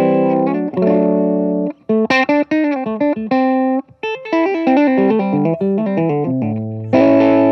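Electric guitar played through a Beetronics Royal Jelly overdrive pedal with a light touch, so the tone stays clean. It opens with a held chord, moves through a run of picked single notes and short chords, and ends on a ringing chord over a low bass note. It shows how the overdrive cleans up when the strings are picked softly.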